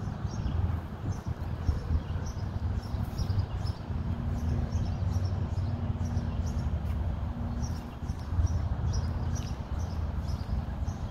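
Birds chirping in short, repeated calls over a steady low rumble.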